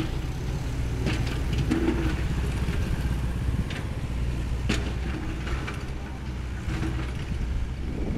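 A Sany SY75 mini excavator's diesel engine running steadily, with scattered sharp clanks and knocks of metal on rock as it works over rubble.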